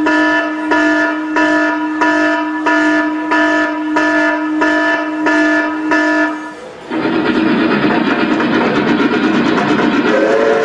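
Train sounds: a held horn-like tone pulsing with a regular beat about every two-thirds of a second, then from about seven seconds in a loud rushing rumble of a moving train, with a whistle sounding near the end.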